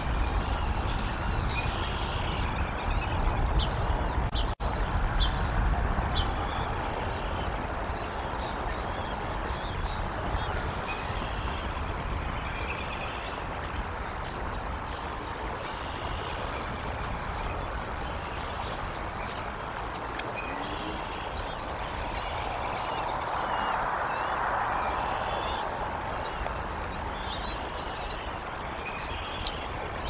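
Birds chirping and calling in quick, high, short notes throughout, over a steady low rumble. The rumble swells briefly about three quarters of the way through.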